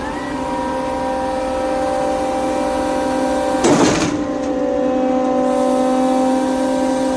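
Sany concrete pump truck running at a steady speed with an even droning hum. About four seconds in, a brief loud rush of noise cuts across it.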